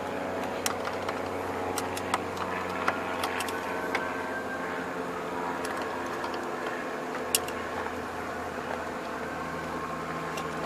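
Scattered metallic clicks and taps of a 14 mm wrench working loose the negative battery terminal clamp, over a steady mechanical hum.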